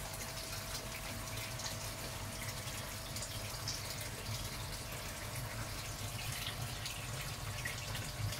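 Water pouring into a koi tank from a filter return, a steady splashing with small drips and plops over a low, steady hum.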